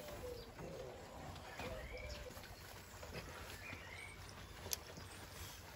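Faint birdsong: short low cooing calls in the first two seconds and a few higher, rising-and-falling chirps around the middle. A single sharp click near the end.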